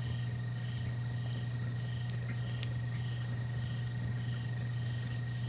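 Steady low hum from a greenhouse aquaponics system, mixed with the roar of a rocket mass heater on a test burn. A rhythmic high chirping repeats a few times a second.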